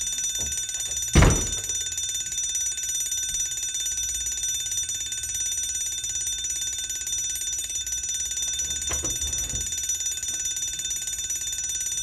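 Fire alarm ringing continuously, a steady high-pitched ring, with one loud thump about a second in.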